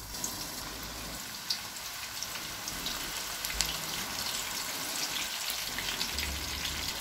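Raw meatballs frying in shallow hot oil in a nonstick pan: a steady sizzle with scattered crackles and pops as more meatballs are set into the oil.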